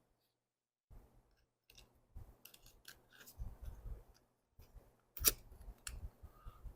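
Soft clicks and rubbing as fuel and return lines are worked onto the fittings of a small engine's carburetor, with a sharper click a little past five seconds in and another just before six.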